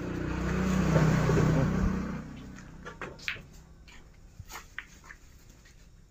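A vehicle passing by: its engine swells to a peak about a second in and fades away within a couple of seconds. A few sharp clicks follow.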